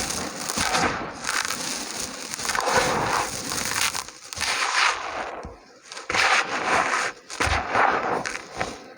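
Small dry, gritty red dirt pieces shaped like mini biscuits being crumbled, a dense crackling crunch that comes in surges with a brief lull about five and a half seconds in.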